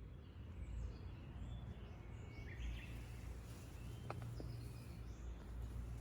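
Outdoor ambience: a steady low rumble with faint bird calls over it, a short chirp about two and a half seconds in and a thin whistled note around four seconds in.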